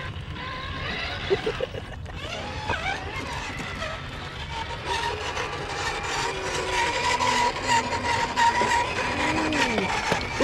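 Traxxas TRX-4 scale RC crawler driving over rough ground: many small clicks and crunches from the tyres and drivetrain, with a steady electric-motor whine from about halfway through.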